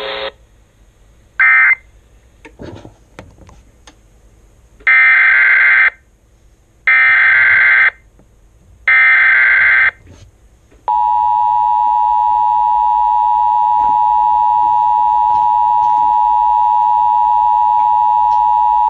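Emergency Alert System data and tones: a short data burst about a second and a half in, then three roughly one-second SAME header bursts of screeching data a second apart, the start of a new alert. About eleven seconds in, the steady EAS attention signal begins and holds to the end.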